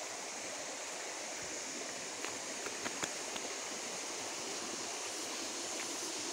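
Steady rush of running water, like a stream or irrigation channel flowing, with a few faint clicks about two to three seconds in.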